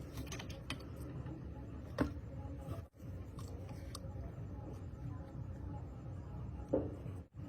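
A few light clicks and small knocks, like tools or parts being handled on a bench, over a low steady hum. The sound drops out completely for a moment twice.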